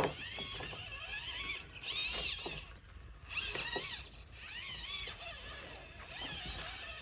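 Axial SCX24 micro RC crawler's small brushed Barrage motor and gears whining in short throttle pulses, the high pitch rising and falling and dropping out a few times as it crawls over rocks, with light clicks of the tyres and chassis on stone and a sharp knock right at the start.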